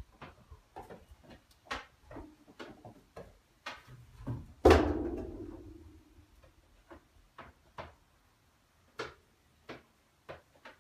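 Goat hooves clicking and scraping on stacked tyres, then about a third of the way in a single heavy thump with a booming ring-out as the goat drops down inside a corrugated-metal storage container. A few more scattered hoof taps follow.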